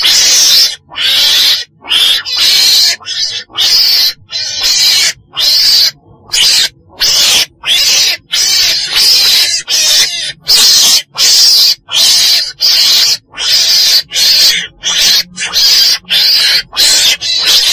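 Weasel (Mustela) calling: a long run of short, harsh, hissy calls with brief gaps, about one and a half a second.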